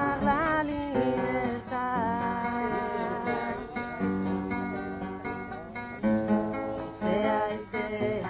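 A woman singing while accompanying herself on an acoustic guitar.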